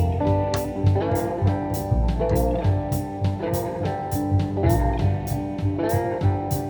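Background music: guitar-led track with a steady drum beat and bass.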